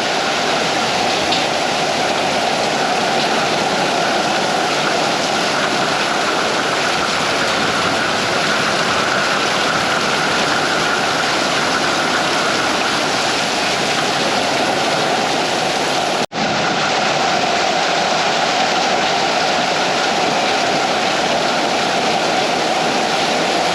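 Heavy thunderstorm rain pouring down in a steady, loud downpour. The sound cuts out for a split second about 16 seconds in, then resumes.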